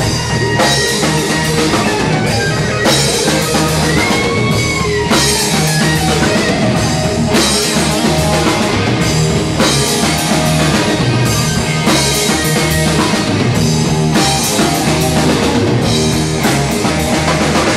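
Rock band playing: electric guitar, bass and a drum kit with crashing cymbals. A held guitar note is bent up and back down about four seconds in.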